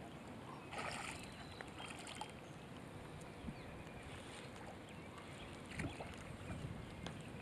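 Hooked largemouth bass splashing at the water's surface as it is reeled in to the bank, with a short splash about a second in and a louder one about six seconds in, over a faint steady background.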